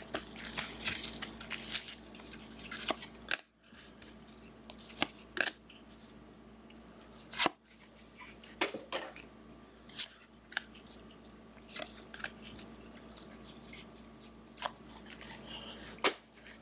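Football trading cards and their packs being handled: scattered short rustles, slides and clicks of cards and wrappers, over a faint steady hum.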